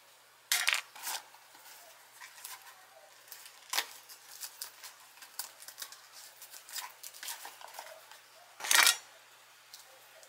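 A small packet being handled and torn open by hand: rustling, crinkling and small clicks, with short, sharper tearing or rustling bursts about half a second in and, loudest, near the end.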